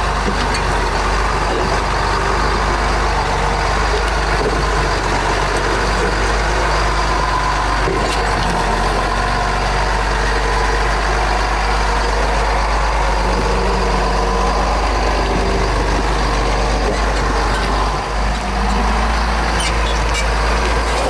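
Off-road 4x4 vehicle's engine running steadily under load with a continuous low rumble, dipping briefly near the end.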